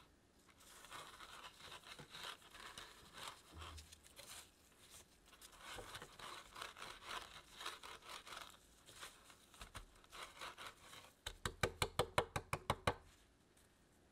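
Granulated sugar rustling and crunching as a chilled cookie dough log is rolled and pressed through a tray of it by gloved hands to coat it. Near the end comes a quick run of about a dozen taps, the loudest part.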